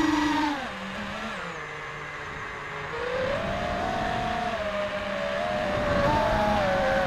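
FPV racing quad's four brushless motors (Xing 2450kv on a 4S battery) and propellers whining. The pitch rises and falls with the throttle: a sharp punch right at the start, then it climbs again about three seconds in and higher still about six seconds in.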